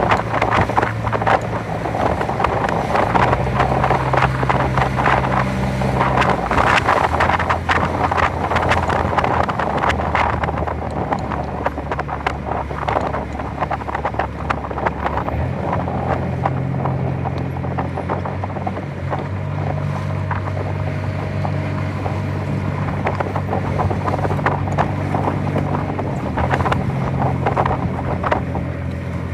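Strong wind buffeting the microphone over water rushing past a boat, with a low steady drone underneath that shifts in pitch a few times.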